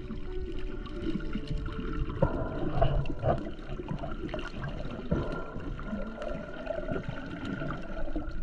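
Muffled water sloshing and gurgling heard by an underwater camera, with scattered small clicks and knocks.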